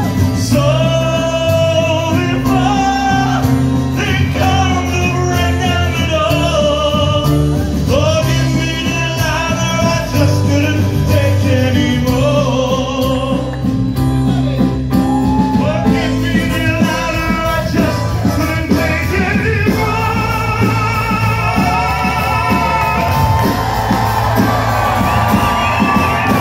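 Live band playing amplified music, a singer singing into a microphone over guitar, a heavy bass and drums.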